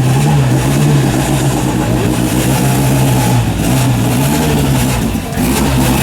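Rally car engine running hard, its note rising and falling repeatedly with the throttle, with a brief drop in level about five seconds in.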